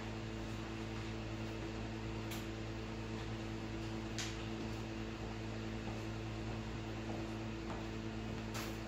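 Steady low electrical hum, with a few faint, soft clicks.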